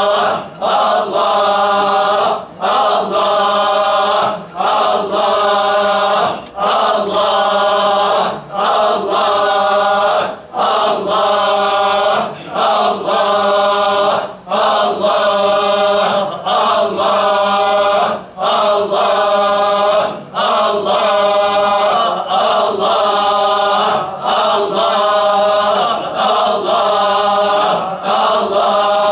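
A group of men chanting the divine name "Allah" in unison in a Sufi dhikr. The repetitions come in a steady rhythm about every two seconds, with a short breath between each.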